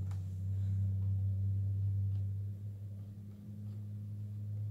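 A steady low hum with a fainter overtone above it, joined by a couple of very faint soft ticks.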